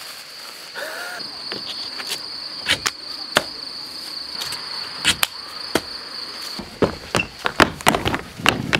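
Steady high chirring of insects in grass, with scattered sharp footfalls and thuds of feet landing. After about six and a half seconds the chirring stops and quicker, louder footsteps and slaps on a concrete skatepark ramp take over.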